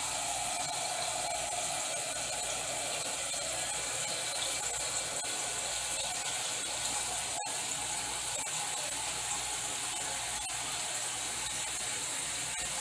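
Cold water running steadily from a kitchen faucet into a metal saucepan as it fills, with a single sharp click about halfway through.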